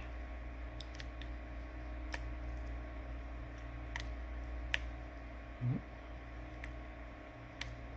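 Scattered light clicks and taps of small repair tools against the opened iPhone 11 Pro as its logic board is worked loose, about eight irregular ticks over a steady low hum.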